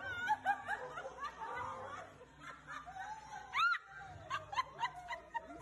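People laughing in a run of short high-pitched giggles, with one higher squeal of laughter a little past halfway through.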